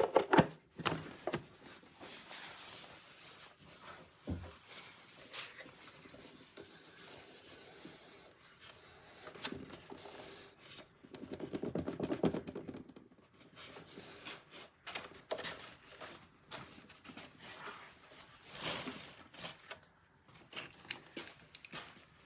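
Scattered handling noises: rubbing and scraping with sharp clicks, and a rasping stretch of fast even strokes about halfway through.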